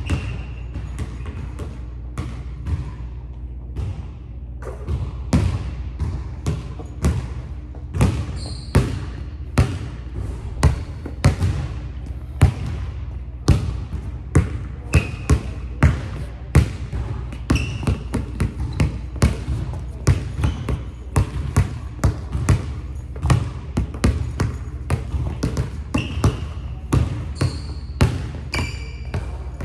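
Basketball dribbled on a hardwood gym floor, a steady run of bounces about two a second that ring in the large hall. A few short sneaker squeaks come in between.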